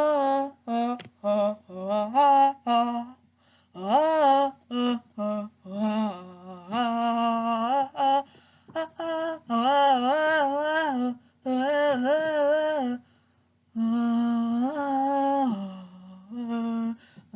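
A person humming a tune: a run of short notes, then longer held notes with a wavering pitch.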